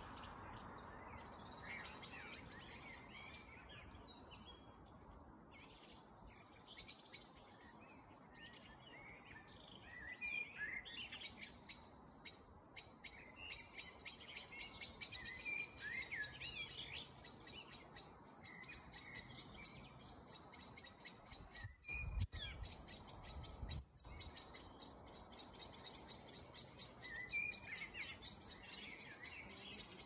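Several songbirds singing together in an evening chorus, a mix of short chirps and warbled phrases. From about a third of the way in, a fast, steady high-pitched trill runs underneath. Two brief low thumps come a little past two-thirds through.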